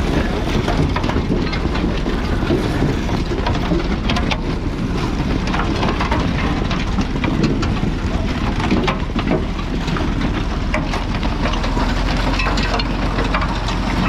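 Massey Ferguson 711 potato harvester working behind a Massey Ferguson 35X tractor: a steady mechanical clatter of its moving parts and the rotating picking table carrying soil, stones and potatoes, with many small knocks over the low hum of the tractor engine.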